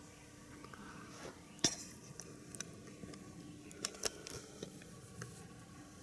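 A few light clicks and taps on an air horn canister and its plastic horn as it is handled against the rabbit's face. The sharpest click comes about a second and a half in, with a quick cluster of smaller ones near the middle.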